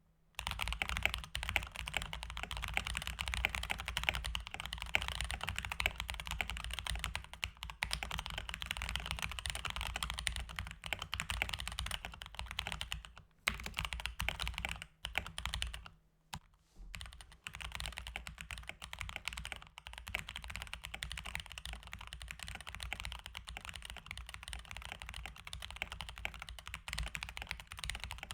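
Mechanical keyboard being typed on fast, at about 130 words per minute: a dense, continuous stream of key clicks and clacks, with brief pauses about 13 and 16 seconds in.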